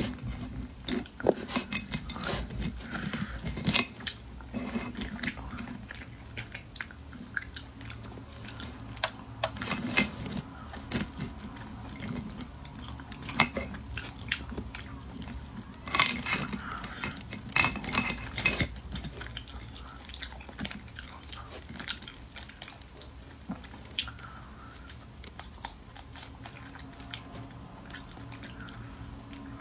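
Cooked crustacean shells being cracked and pulled apart by hand, close to the microphone, with chewing and small clicks of shell against a plate. There are sharp cracks and crackles scattered throughout, louder clusters coming every few seconds.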